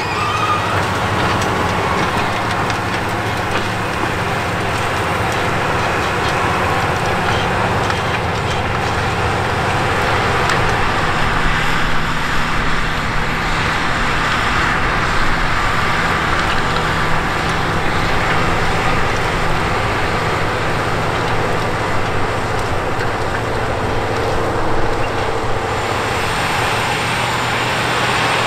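Case IH Quadtrac 540 tractor's diesel engine running steadily under heavy load, pulling a ripper and disc harrow through the soil.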